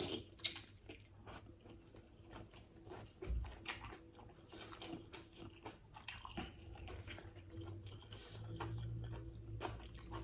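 A person chewing fish close to the microphone, with soft irregular smacks and small wet mouth clicks.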